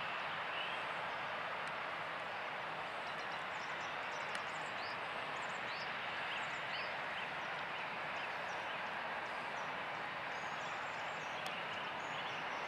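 Airbus A321 jet engines at low taxi power, heard from a distance as a steady, even rush. Short, faint bird chirps sound over it now and then.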